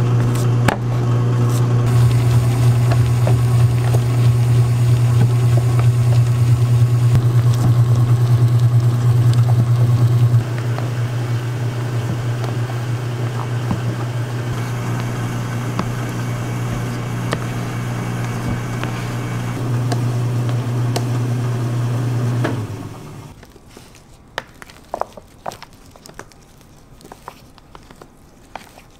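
Gelato batch freezer running with a steady low hum as it churns and pushes gelato out of its discharge chute. The hum steps down a little about ten seconds in and the machine shuts off around 22 seconds in. After that come light, scattered taps and scrapes.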